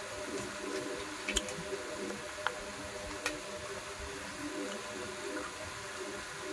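Eating by hand from a steel plate: soft squelching of rice and curry being mixed with the fingers, with a few sharp clicks between about one and three and a half seconds in, over a steady background hiss.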